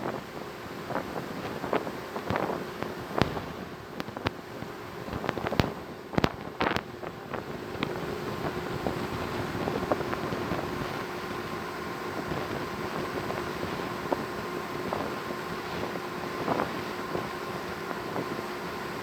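Steady drone of a cargo ship's engine heard on board, with wind and water noise, and a few sharp knocks in the first several seconds.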